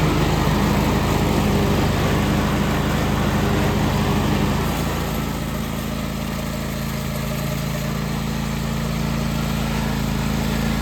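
John Deere X500 lawn tractor engine running steadily; about four and a half seconds in its note shifts and it gets a little quieter, then holds.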